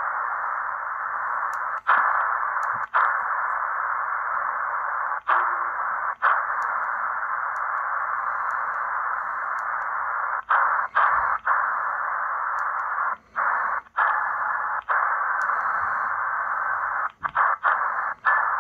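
Shortwave receiver static: a steady, narrow hiss from the Hanrongda HRD-747 in single-sideband mode, cut by over a dozen brief dropouts and clicks as the frequency is stepped with the buttons. A faint steady whistle comes in about halfway through.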